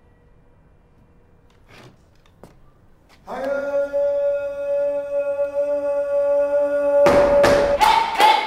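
Film music: about three seconds in, a single voice sings one long held note; near the end sharp percussion strikes come in and the voice moves up to a higher note.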